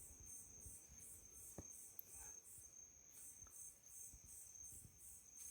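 Faint night chorus of crickets: a steady high-pitched trill under a high pulsing chirp that repeats about three times a second.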